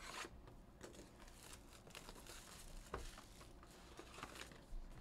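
Faint crinkling and tearing of the wrapping as a sealed Panini Prizm football hobby box is opened, with scattered small crackles.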